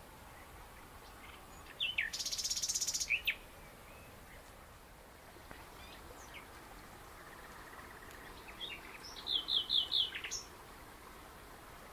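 Small birds chirping against a steady outdoor hiss. A short buzzy trill comes about two seconds in, and a quick run of about five falling notes near the end.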